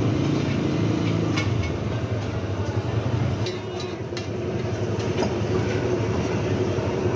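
A motor running steadily with a low hum, mixed with scattered clicks and clatter.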